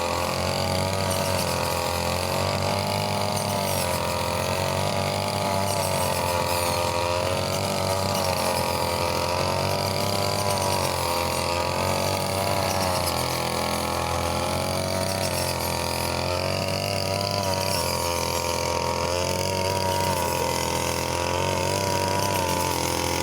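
Brush cutter's small engine running continuously, its speed and pitch rising and falling every couple of seconds.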